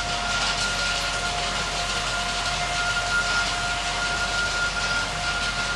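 Model railway train running on the track: a steady rolling hiss of wheels on rail with a thin, steady whine.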